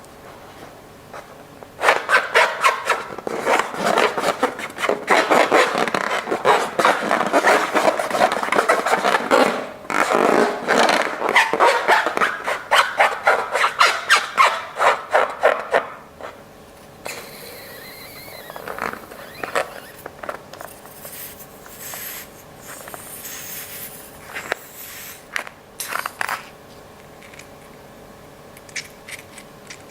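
Slime being mixed and kneaded by hand: a dense run of quick squishing and crackling clicks from about two seconds in, stopping abruptly around sixteen seconds, followed by quieter, scattered handling sounds.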